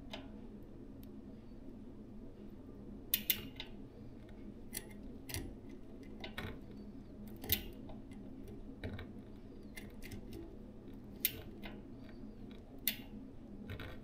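Irregular sharp metallic clicks and clinks, about eight, from tools and the rear cassette being handled while the sprockets are taken off a road bike's rear wheel, over a faint steady low hum.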